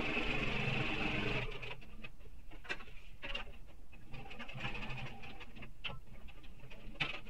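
Electric sewing machine running steadily as it stitches, stopping about a second and a half in. Then comes fabric rustling and light clicks as the stitched strip is handled and drawn out from under the presser foot.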